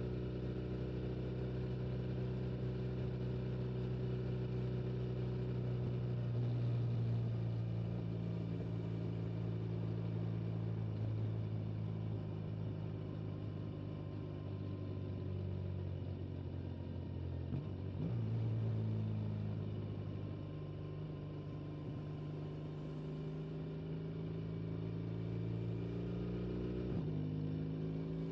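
Motorcycle engine running at steady highway cruising speed under wind and tyre noise. Its note dips and picks up again a little past halfway through, and changes once more near the end.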